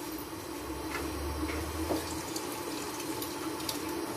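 Water running steadily, like a tap, with a few faint clinks.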